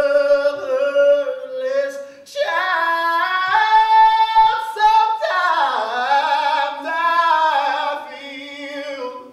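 Unaccompanied singing in a high voice: long held notes that step up higher a couple of seconds in, then slide back down, growing softer near the end.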